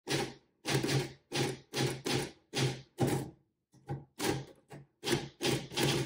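Manual typewriter keys struck one at a time at an uneven pace, about fifteen strikes, each clack ringing briefly, with a short pause around the middle.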